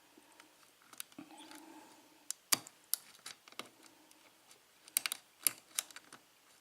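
Lock pick and tension wrench working the pins of a six-pin Lockwood padlock: scattered sharp metallic clicks, with a short scraping about a second in.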